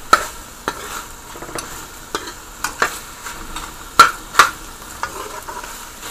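Beef pieces with garlic and seasoning sizzling in hot olive oil in a pan as they fry down, stirred with a utensil that clicks and knocks against the pan about a dozen times. The loudest two knocks come close together about four seconds in.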